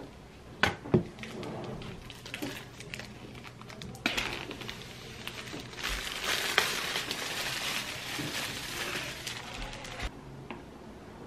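Clear plastic shrink-wrap crinkling and rustling as it is peeled off a MacBook Air box, louder and denser from about four seconds in and stopping abruptly near the end. Two sharp knocks on the box come about a second in and are the loudest sounds.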